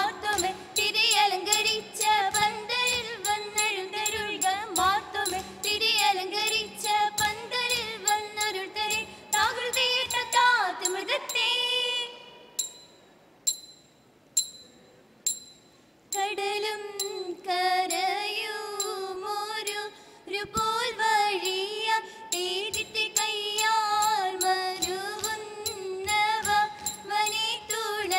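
Margam Kali song: high voices singing in unison over steady rhythmic clapping and metallic jingling. About twelve seconds in, the singing breaks off for some four seconds, leaving a few single ringing strokes, then picks up again.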